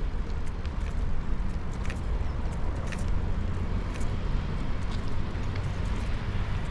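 Steady rain hiss over a constant low rumble, with scattered sharp ticks of drops landing at irregular intervals.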